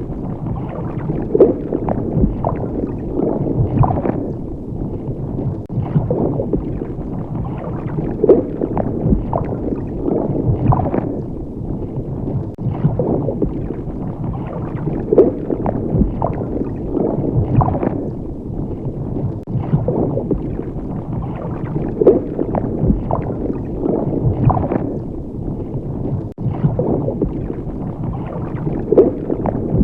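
Water bubbling and gurgling continuously, with louder single bubble plops at irregular moments, roughly every second or so.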